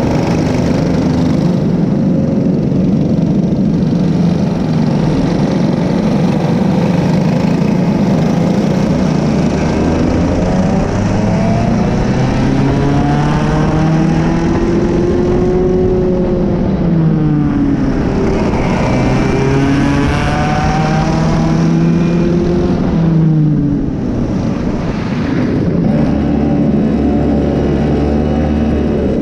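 Racing kart engines at full race pace, heard from on board a kart in a pack. The engine note climbs and falls several times as the karts accelerate out of corners and lift for the next, over a steady rushing noise.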